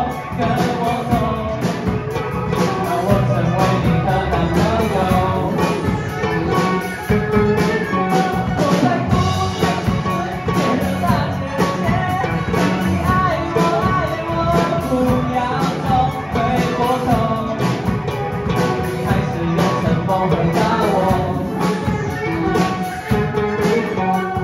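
Live pop-rock band playing a song on drum kit, electric guitar, bass guitar and keyboard, with a singer's voice over the band.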